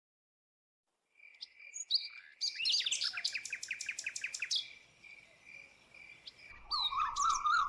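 Birdsong: a high steady note with chirps, then a fast run of repeated chirps, about seven a second. Near the end comes a lower warbling trill.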